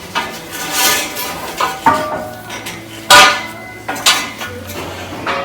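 Scrap iron pieces being handled and loaded, clanking against each other with metallic ringing: about half a dozen knocks, the loudest about three seconds in.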